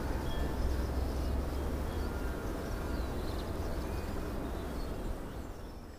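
Outdoor ambience: a steady low rumble with faint, short bird chirps scattered through it, fading out near the end.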